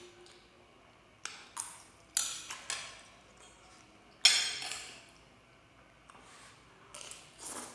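Spoon and fork clinking and scraping against a plate while eating, in a string of sharp strokes; the loudest comes about four seconds in.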